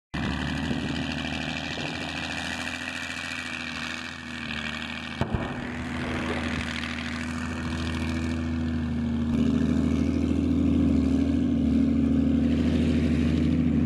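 Diesel engine of a 2S7 Malka 203 mm tracked self-propelled gun running steadily, growing louder about two-thirds of the way through, with a brief click a little over 5 seconds in.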